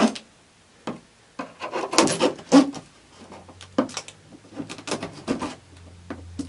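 A blade slicing and scraping along packing tape on a cardboard box, in two runs of short scraping strokes.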